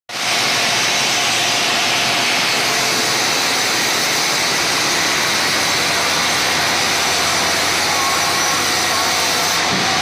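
Sawmill machinery running with a steady, even mechanical noise and a faint low hum underneath.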